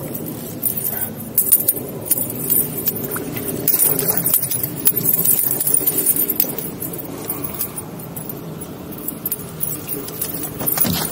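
A small trout being netted beside a boat and lifted aboard: water splashing and a run of sharp clicks and clinks from the net and gear against the boat.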